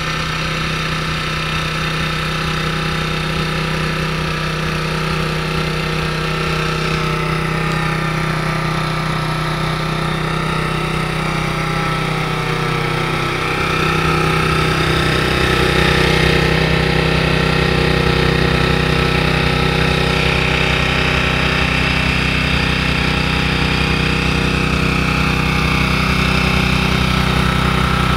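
Two-stage walk-behind snowblower's small petrol engine running steadily under load as its auger and impeller chew through deep snow and throw it out of the chute. It gets louder about halfway through.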